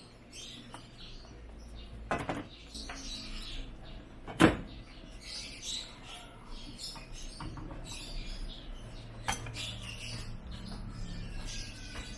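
Wooden spoon stirring a stew in a metal pan, then a glass lid going onto the pan, with a few knocks and one sharp clink about four and a half seconds in, over a low steady background.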